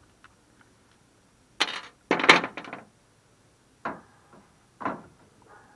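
Metal tools and small carburetor parts being handled and set down during disassembly. There are a few sharp knocks and clinks: a short one, then the loudest, a rattling clatter about two seconds in, and then two single knocks.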